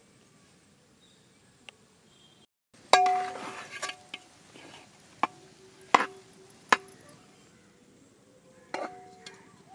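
A metal utensil clanking against a large metal cooking pot, about five sharp strikes, each with a brief metallic ring. The first comes about three seconds in, after near quiet.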